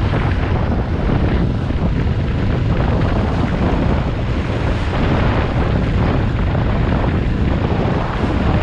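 A small boat's outboard motor running at speed, mixed with wind buffeting the microphone and water rushing and splashing past the hull. The noise is steady and unbroken throughout.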